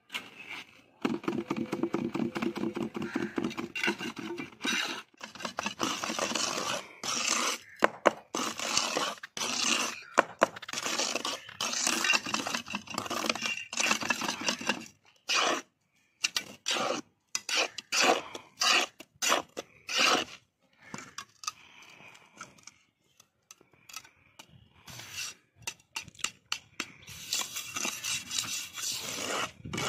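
Steel hand trowel scraping over wet cement in a steel tile mould in quick repeated strokes with brief pauses, with light metal clinks. The strokes thin out and grow quieter from about halfway, then come harder and hissier again near the end.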